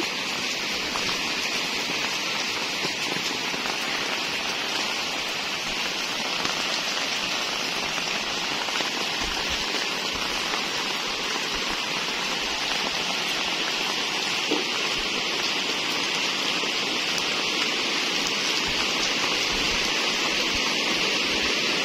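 Steady rain falling on a wet concrete lane, a continuous even hiss.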